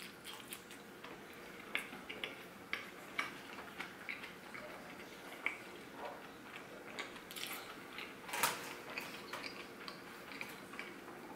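Soft, irregular wet mouth clicks and lip smacks of a person chewing food with the mouth closed, with fingers being licked at the start and a slightly louder smack about eight seconds in.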